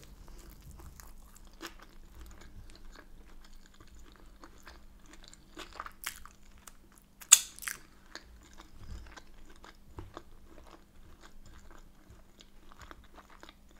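Close-miked mouth sounds of a person chewing a mouthful of Yorkshire pudding: small wet clicks and smacks throughout, with one louder sharp click about seven seconds in.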